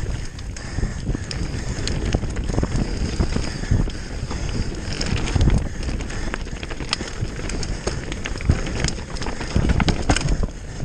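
Mountain bike descending a dry dirt trail at speed: tyres rumbling over dirt and roots, with frequent sharp clacks and rattles from the bike and wind buffeting the microphone.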